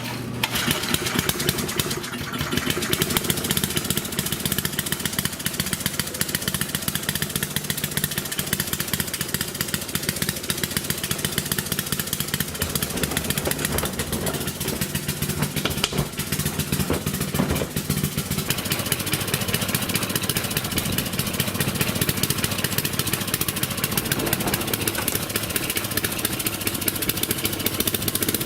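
Small single-cylinder Briggs & Stratton engine on a Rupp mini bike running steadily, cold and warming up in freezing weather; its note shifts slightly about eighteen seconds in.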